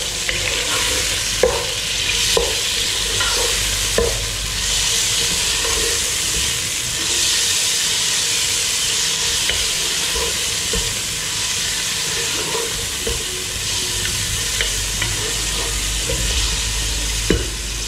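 Cubed chicken sizzling in hot oil with chopped ginger and garlic in a non-stick pot. A wooden spoon stirs it and now and then knocks and scrapes against the pot.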